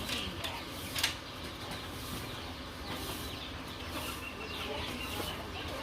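Faint chirping and clucking of farmyard birds, with one sharp knock about a second in.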